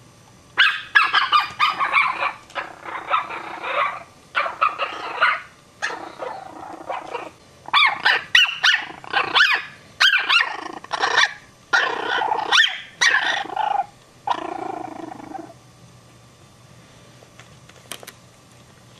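Small white fluffy dog barking repeatedly in quick runs of barks, starting about half a second in and stopping after about fifteen seconds.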